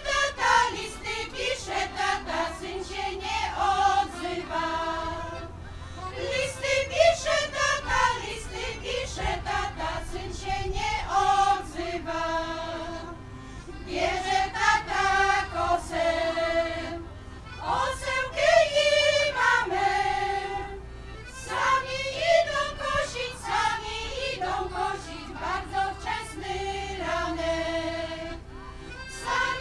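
Women's folk choir singing a folk song in phrases a few seconds long with short breaks between them, accompanied by an accordion.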